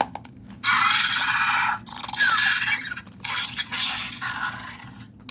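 Primal Pal Blue animatronic baby velociraptor toy playing its electronic creature sounds through its speaker, reacting to being fed: three raspy bursts of about a second each, the middle one with a short falling squeal.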